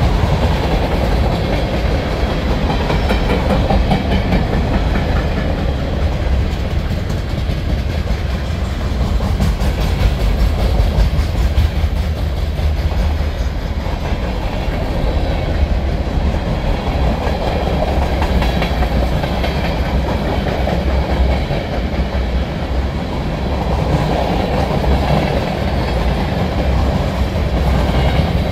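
Freight cars of a long CSX manifest train rolling past close by: a steady rumble of steel wheels on the rails, with the clickety-clack of the wheelsets over the rail joints.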